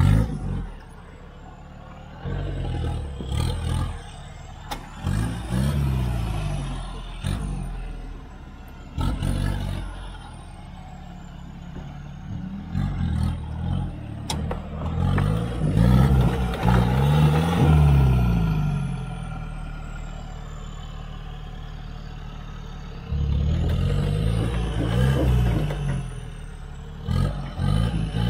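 Mitsubishi NL Pajero's 2.8-litre turbo-diesel revving in repeated surges while crawling up a rutted rocky climb under load, with a high whistle rising and falling with the revs. A few sharp knocks come between the surges.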